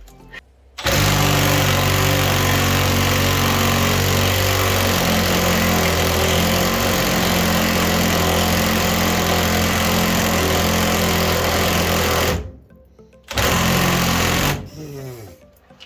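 Impact wrench hammering on a seized body-to-chassis bolt for about eleven seconds, stopping, then running again briefly about a second later. The bolt is coming out, but only reluctantly.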